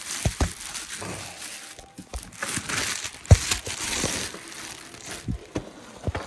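Plastic packaging crinkling as the parts of a new electric meat grinder are handled, with several knocks of the parts being bumped; the loudest knock comes about halfway through.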